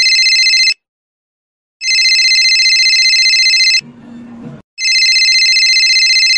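Mobile phone ringing with an electronic trilling ringtone for an incoming call: rings about two seconds long with a second's pause between them, the first ending under a second in and the third starting near the end.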